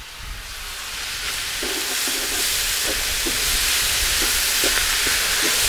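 Tomato peppers and vegetables sizzling in a large cast-iron pan: the sizzle swells over the first second or two as the just-added peppers hit the hot fat, then holds steady. A wooden spatula scrapes and knocks in the pan as they are stirred through.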